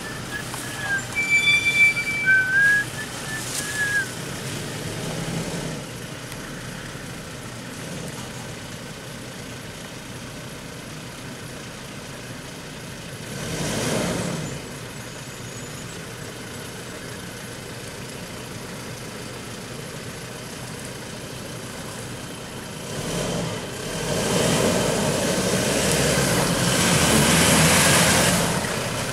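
Toyota Hilux pickup's engine running slowly. It swells briefly about halfway, then grows louder over the last five seconds as the pickup drives over a washed-out rut. A few high whistled notes come near the start.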